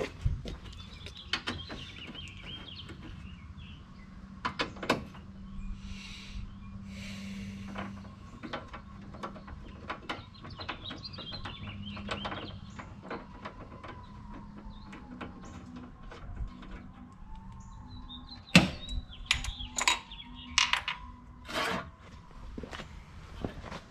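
Hand tools working the headlight assembly's mounting screws: intermittent ratchet clicks and metal clinks, with the sharpest knocks and clinks coming in a cluster near the end. Birds chirp now and then over a steady low hum.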